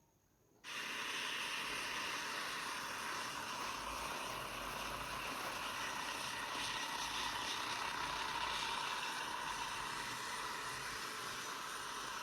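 Large remote-control helicopter running: a steady hissing engine and rotor noise that cuts in suddenly about half a second in.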